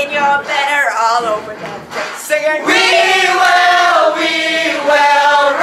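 A group of male and female voices singing loudly together, holding one long note from about halfway through.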